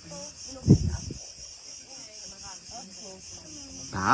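Crickets chirring steadily in a high band, with one loud low thump just under a second in.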